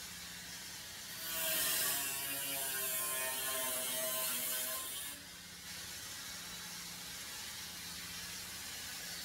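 Corded grinder with an abrasive cutting wheel cutting through a steel bearing bracket spot-welded to a blower housing. The motor runs free, then bites into the metal for about four seconds of loud grinding with a wavering whine, then runs free again more quietly.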